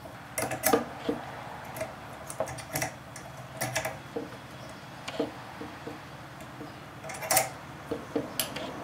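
A 1/4-20 hand tap being turned into a hole in a metal pipe to cut threads, with irregular small metal clicks and clinks as the tap and its handle work back and forth.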